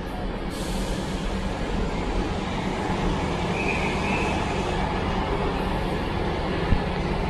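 Class 158 diesel multiple unit arriving into the platform and slowing to a stop, its diesel engines running with a steady low drone. A brief faint high squeal comes about halfway through, and a short knock near the end.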